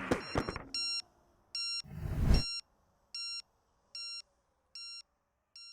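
An electronic beeper repeating a short high beep about once every 0.8 seconds, each beep fainter than the last, with a brief rush of noise about two seconds in.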